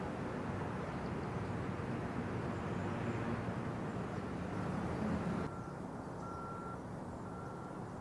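Steady low engine rumble. About five and a half seconds in the hiss above it drops away, and a high electronic beep starts repeating about once a second, like a backup alarm.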